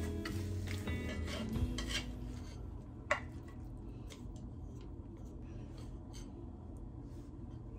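Wooden chopsticks scraping and tapping against a rectangular frying pan while stirring scrambled eggs, busiest in the first two seconds. A single sharp click comes about three seconds in, followed by softer scattered taps.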